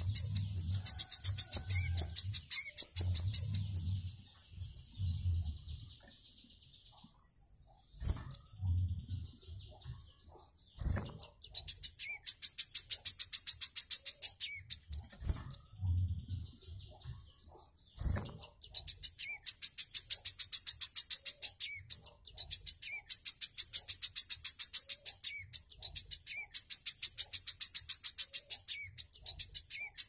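Caged wiceh, a small sunbird kept as a song tutor, singing long runs of rapid, high-pitched chattering notes, several seconds at a time, with a quieter lull in the first third. A few sharp knocks stand out between the runs.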